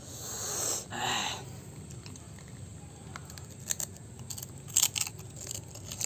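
A man eating spicy instant noodles. Two breathy huffs come near the start, followed by chewing with scattered small clicks.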